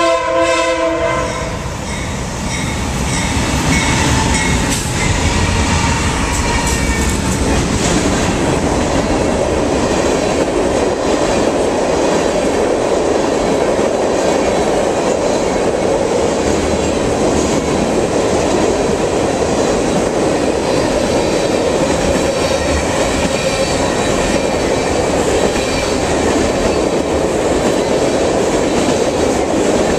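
Freight train passing close by. It opens with a short multi-tone blast of the locomotive horn, then the three GE diesel locomotives run past for the first several seconds. Empty black tank cars follow, rolling by with a steady wheel-and-rail rumble and rhythmic clickety-clack.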